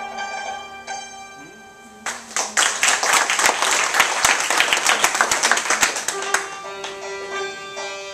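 Santur notes struck with mallets, then about two seconds in a burst of loud hand clapping lasting about four seconds, after which the santur notes return.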